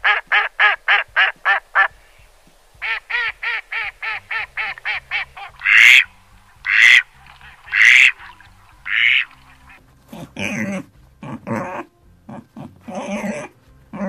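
Female mallard duck quacking: rapid runs of short quacks, about six a second, then a few louder single quacks about a second apart. Lower, rougher irregular calls follow over the last few seconds.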